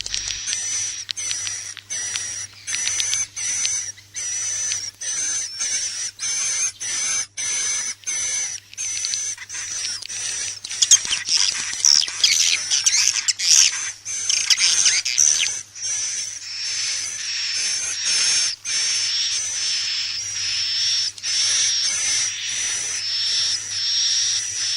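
Edible-nest swiftlet calls: a dense, fast chatter of high chirps and buzzy twitters, broken by short gaps about twice a second, with a louder flurry around the middle. It is a swiftlet lure recording ('inap' roosting call) of the kind played from swiftlet houses to draw the birds in to roost and nest.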